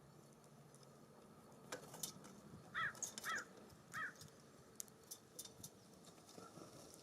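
A bird gives three short calls in quick succession near the middle, among scattered sharp ticks and taps.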